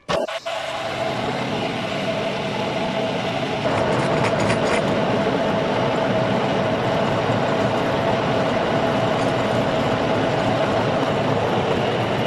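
Metal lathe running with a heavy cast gear housing spinning in its chuck: a steady mechanical whine with one constant tone, stepping up louder about three and a half seconds in.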